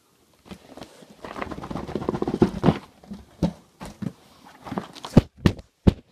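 Cardboard box and its packaging being handled and opened by hand. About a second in there is a stretch of scraping and rustling, then several sharp knocks and taps near the end.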